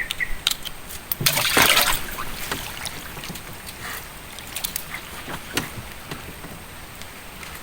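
Scattered clicks and knocks of fishing gear being handled in a small boat, with a short loud rush of noise about a second and a half in.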